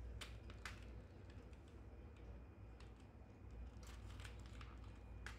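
Faint, irregular clicks of computer keyboard keys pressed by a baby's hands, with a quicker cluster of presses about four seconds in.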